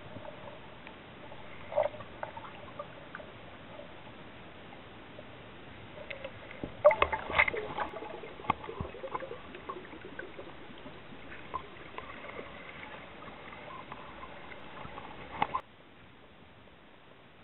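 Muffled underwater noise picked up by a submerged camera: a steady hiss of water with scattered clicks and knocks, and a cluster of louder knocks and crackles about seven seconds in. The noise drops off suddenly near the end.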